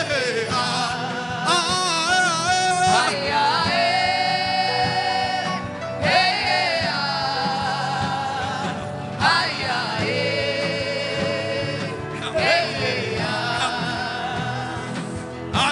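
Gospel worship singing: a voice sings long, wavering held notes in phrases of about three seconds, with brief breaks between them, over a steady sustained backing.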